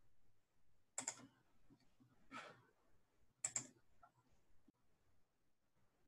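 Faint clicking at a computer: three short bursts of clicks, about a second, two and a half and three and a half seconds in, over near silence.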